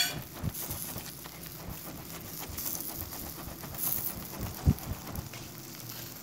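Kebab skewers over a charcoal grill, a faint steady sizzle and hiss, with a few low thumps, the loudest about four and a half seconds in.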